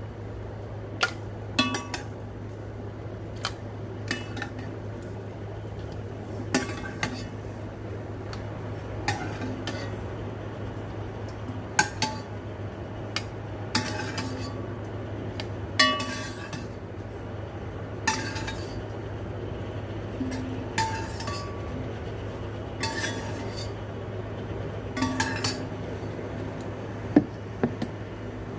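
Kitchenware clinking and knocking, sharp strikes with a brief ring about every two seconds, as blended soup is emptied from a blender jar into an enamel pot. A steady low hum runs underneath.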